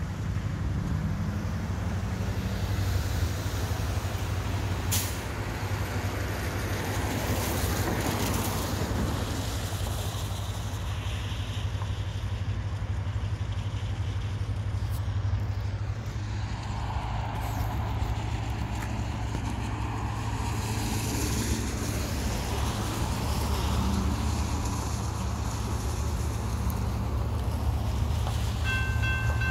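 BNSF Loram rail-grinding train working in the distance: a steady low rumble with a hiss from its grinding on the rail. Just before the end, an electronic grade-crossing bell starts ringing as the crossing activates.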